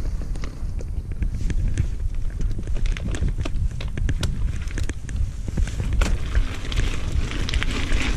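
Mountain bike rolling fast down a loose gravel trail: a steady low rumble of tyres and wind on the bike-mounted camera's microphone, with frequent sharp ticks and rattles of stones and the bike itself. A hiss grows louder near the end.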